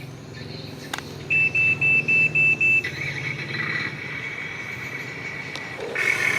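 Remote-control model excavator running: a steady low hum with a higher whine from its motors and gears. Six short, loud, high beeps come quickly, about a second in. A louder mechanical whir follows near the end.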